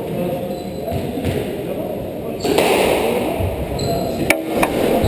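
A squash ball struck hard, two sharp cracks close together about four seconds in, with indistinct voices in the court before.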